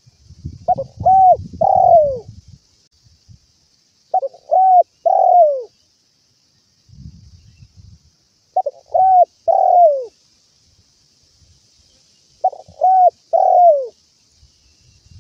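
Spotted dove cooing: four phrases about four seconds apart, each of three notes, the last one drawn out and falling in pitch. Faint low rustling sounds near the start and again about seven seconds in.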